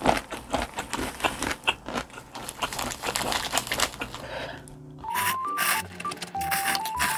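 Mukbang eating sounds: utensils clicking and scraping in a plastic container as ramen noodles are lifted from the soup, then the noodles slurped. Light background music with a simple melody comes in about five seconds in.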